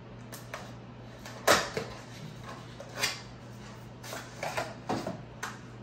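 Small cardboard product box being opened by hand: its seal slit with a small cutter, then the box pulled and slid open. Scattered scrapes and taps; the sharpest tap comes about a second and a half in. A low steady hum runs underneath.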